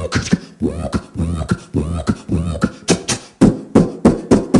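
A man making sound effects with his mouth into a stage microphone: a quick run of short vocal sounds, each rising and falling in pitch, then four loud sharp pops near the end.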